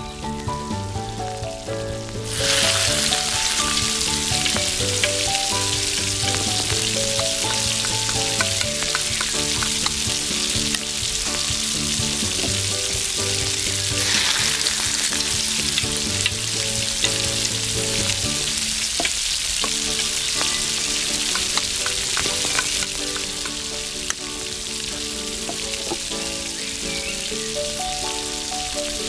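Hot oil sizzling in a miniature iron wok as chopped garlic, then mushrooms and carrot, are dropped in and stirred with a tiny metal spoon. The sizzle starts loud about two seconds in and flares up again about halfway through, with light spoon clicks.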